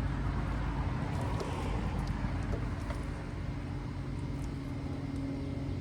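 Steady low mechanical hum with a few faint small clicks.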